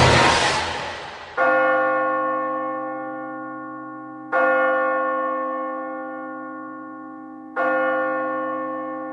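A bell tolls three times, about three seconds apart, each stroke ringing on and slowly dying away. Before the first stroke, a loud rushing noise fades out.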